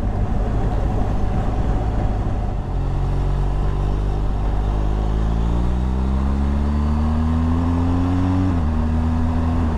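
BMW R1200GS boxer-twin engine heard from on board, pulling up through the revs as the bike accelerates. About eight and a half seconds in, the pitch drops suddenly with a shift to a higher gear, then holds steady.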